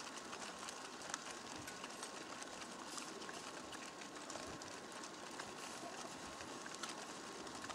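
Faint steady outdoor background hiss with scattered small clicks and a faint steady tone.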